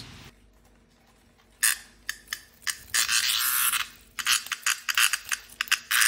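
A small cicada, Platypleura kaempferi, held between fingers and buzzing harshly. A few short buzzes start about one and a half seconds in, then a longer buzz about three seconds in, then a fast run of pulses. This is the protest buzz a handled cicada gives.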